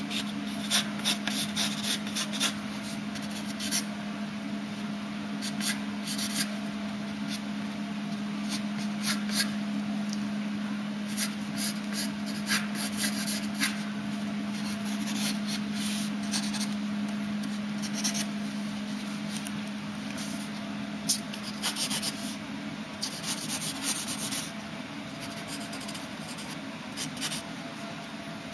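Pencil scratching on paper in quick, irregular strokes while drawing in the spiky hair of a sketch, over a steady low hum that fades out about two-thirds of the way through.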